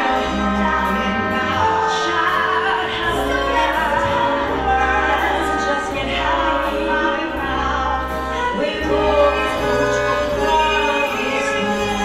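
Two women singing a duet into microphones, with held, wavering notes over a live band's accompaniment and a steady bass line.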